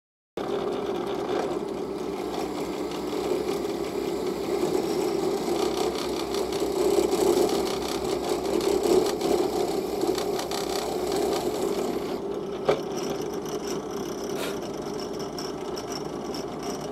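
Drill press motor running steadily while boring into a small wooden strip and disc clamped in a machine vice. The high hissy part of the noise drops back about twelve seconds in, with a single sharp click.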